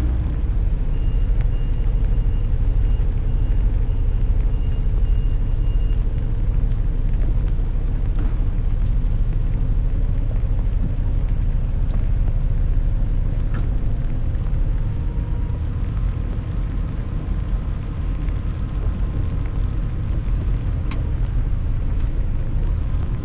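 Bavaria 40 sailboat's inboard diesel engine running at low speed while motoring into harbour, a steady low rumble.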